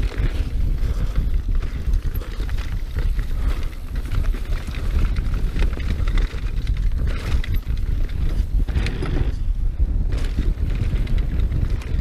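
Wind buffeting the action camera's microphone over the rattle and tyre noise of a YT Jeffsy trail mountain bike rolling fast down a dirt jump trail, with a few brief louder hissing surges from the tyres on dirt.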